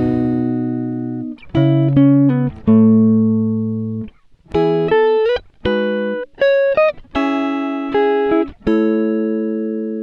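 Music: guitar chords, each ringing out and fading, with short breaks between them.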